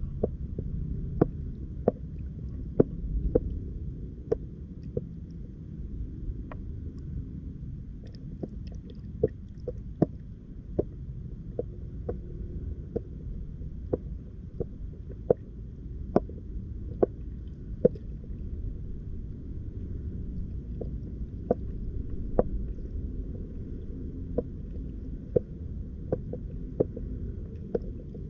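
Muffled underwater rumble picked up by a submerged camera, with sharp clicks at irregular intervals, roughly one a second.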